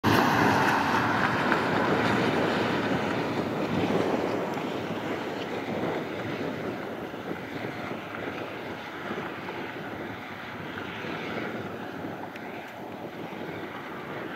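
Gusty wind rushing and buffeting the microphone ahead of a severe thunderstorm. It is loudest for the first couple of seconds, then eases to a steadier rush.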